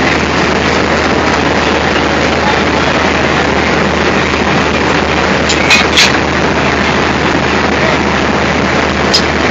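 Diesel locomotive engine idling with a steady low drone, with a few sharp metallic clinks around six seconds in and again near the end.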